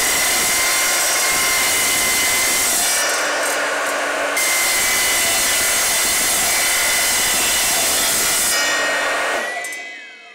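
Evolution R255SMS mitre saw's 255 mm multi-material blade cutting through 2.7 mm steel plate, a loud steady grinding screech with a whine, easing briefly a few seconds in. Near the end the motor is switched off and the blade spins down.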